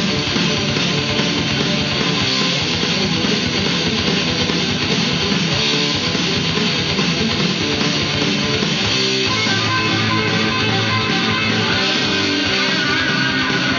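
Guitar-driven rock music playing from a vinyl LP on a Technics SL-20A turntable.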